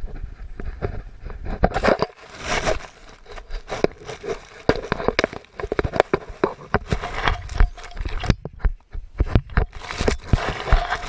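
A beagle mouthing and gnawing at a GoPro, its teeth and muzzle scraping and knocking on the camera housing right at the microphone: a dense run of irregular clicks, crunches and scrapes.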